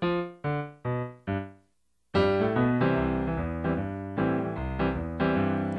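Piano playing an introduction. Four short chords are struck about half a second apart, each dying away, then there is a brief silence. A fuller, steadier accompaniment starts about two seconds in.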